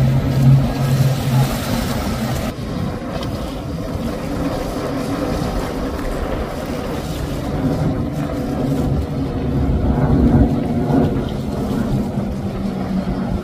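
Motorboats running past at speed, the steady drone of their engines over the rush of the hulls and spray through choppy water. A strong engine tone at the start gives way about two and a half seconds in to a second boat's quieter engine and water noise, which swells again near the end.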